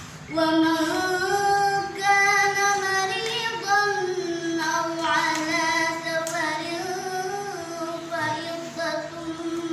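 A solo voice chanting a Quran recitation in the melodic tilawah style, holding long notes with slow ornamented turns in pitch. It comes in about a third of a second in.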